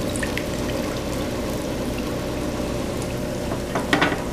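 Hot oil sizzling and crackling steadily in a deep pot as pieces of baby back ribs deep-fry, with a couple of sharp clicks near the end.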